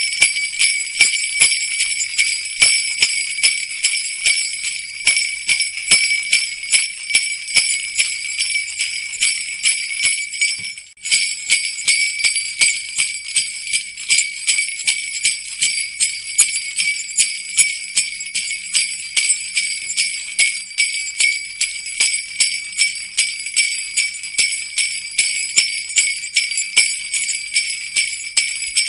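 Jingle bells shaken in a steady rhythm, about two shakes a second, with a brief break about eleven seconds in.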